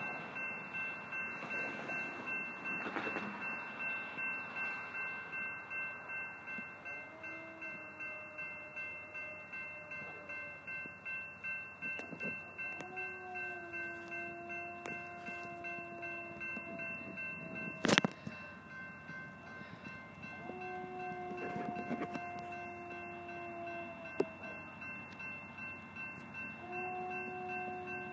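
Distant freight locomotive horn, led by a BNSF GE AC44C4M, sounding four long two-note blasts for a crossing as the train approaches, over a grade-crossing bell ringing steadily about twice a second. One sharp click about eighteen seconds in.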